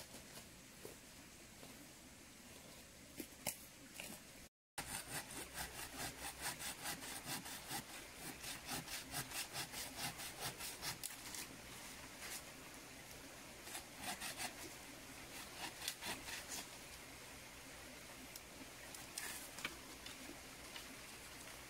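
Machete blade scraping along a wooden pole in quick, even strokes, about three a second, thinning to a few scattered strokes near the end. A few faint knocks and rustles come before the strokes start.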